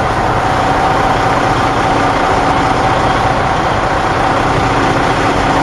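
Heavy truck tractor's diesel engine running steadily at low speed, a constant hum and rumble with no changes, as the tractor creeps away from the uncoupled lowboy trailer.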